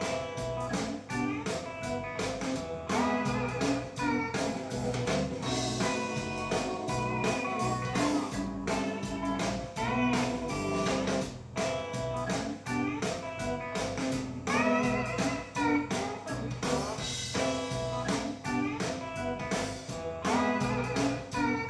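Guitar-led blues-rock theme music with drums, playing steadily.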